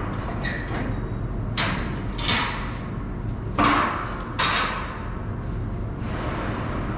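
Metal scaffold parts clanking on a loaded steel cart: four sharp metallic clanks in the middle, the third the loudest, over a steady low rumble.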